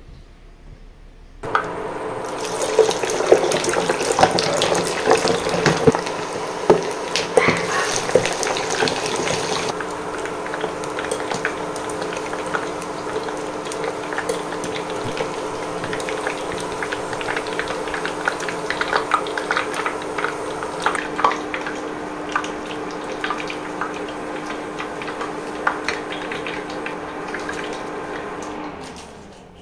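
Pork mesentery deep-frying in a pot of hot oil: a dense sizzle full of crackling pops, thickest in the first several seconds, with a steady faint hum underneath. It starts suddenly about a second and a half in and fades out near the end.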